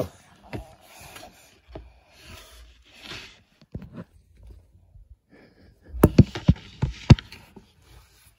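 Handling noise from a phone held right against a small child's hair and face: rubbing and scraping with scattered clicks, then a quick cluster of sharp knocks about six seconds in.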